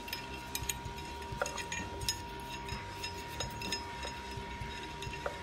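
Light, scattered metallic clinks and taps as gloved hands handle a flywheel and its bolts.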